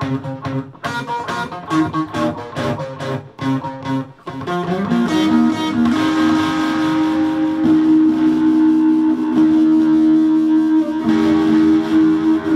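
Electric guitar being played: quick picked notes for about the first four seconds, then long held notes ringing on through the rest.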